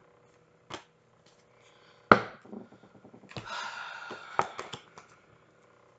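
Tarot cards being handled: a few sharp clicks and taps of cards against each other and the table, the loudest about two seconds in, with a longer rustle of cards in the middle.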